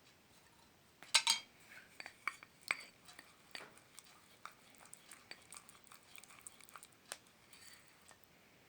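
Spoon clinking and scraping against a dish, a string of light irregular clicks with a louder clatter about a second in.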